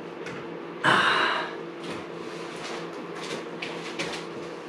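A man's sharp, breathy exhale of effort about a second in, as he handles a heavy oak-and-metal sculpture slab, followed by a few light knocks over a steady low hum.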